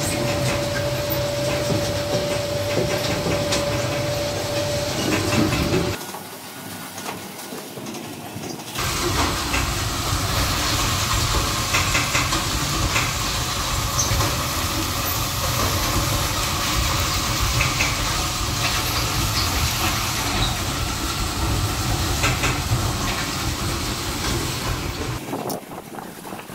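'Dachs' wood-chip conveyor running: a steady mechanical hum with a whine from the drive, and wood chips rattling and hissing as they are scraped along. About six seconds in it goes quieter for a few seconds, then returns as a steady rushing noise with scattered clicks as chips pour into the storage bunker. It falls away near the end.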